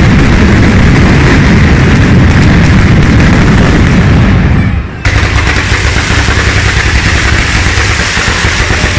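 A batteria: a long chain of firecrackers laid along the street, going off in rapid, unbroken succession as one dense, very loud crackle of bangs. About halfway through it dips for a moment, then carries on.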